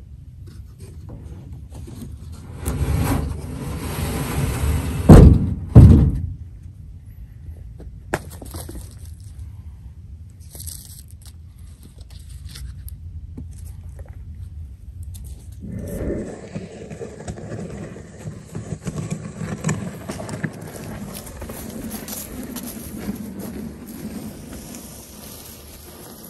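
Heavy weathered wooden bench top scraping against wood for a couple of seconds, then two loud wooden thuds about a second apart. Later comes a quieter, steady rustling and scraping as the plank is moved over grass.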